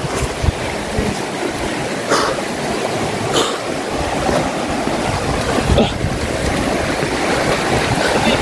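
Shallow rocky river rushing over stones: a steady wash of running water.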